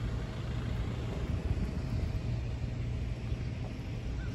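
Street ambience: a steady low rumble of road traffic, with wind on the microphone.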